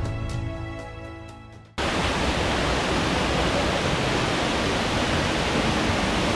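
Background music fading out over the first two seconds, then a sudden cut to the loud, steady rush of a waterfall.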